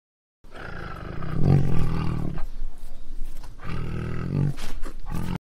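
Big cat roaring, deep and rough: a long roar peaking about a second and a half in, a second about four seconds in, and a short last one near the end.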